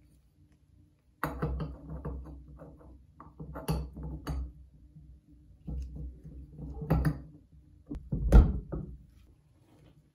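The end cover of a Hitachi bench grinder's motor being fitted onto the housing over the armature shaft. Irregular knocks, clunks and scrapes come in several clusters as it is worked into place, with the loudest thud a little past eight seconds in.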